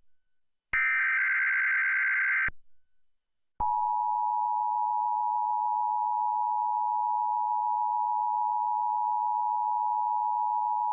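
Emergency Alert System activation: a digital SAME header data burst of nearly two seconds, then after about a second of silence the EAS attention signal begins, two steady tones just under 1 kHz (853 and 960 Hz) sounded together and held.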